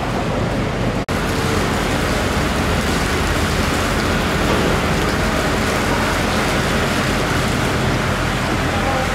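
Steady, loud background din, an even rushing noise with no distinct knife strokes standing out, broken by a split-second dropout about a second in.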